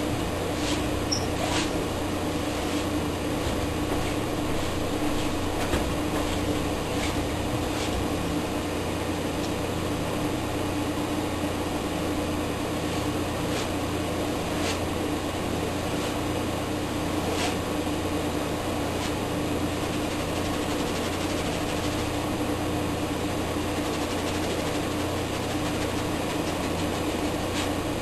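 Steady mechanical hum and hiss at an even level, like a fan or air conditioner running, with a few faint ticks.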